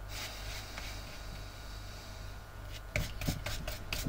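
Glue brush working thinned leather-and-rubber glue onto the bottom of a shoe as a primer coat. It makes a soft, faint rubbing, then from about three seconds in a run of quick short dabs, several a second.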